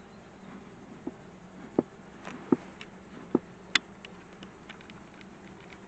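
Italian honeybees buzzing from an open hive as a faint steady hum, with a handful of light clicks and knocks in the first four seconds as the hive's frames and parts are handled.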